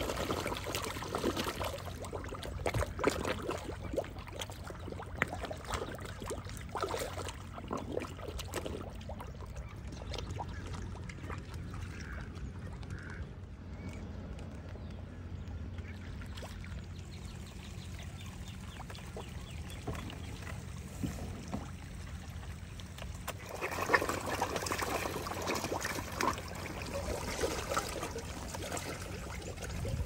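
Pond-side water trickling and pouring, with louder bouts of splashing and rustle near the start and again from about 24 seconds in.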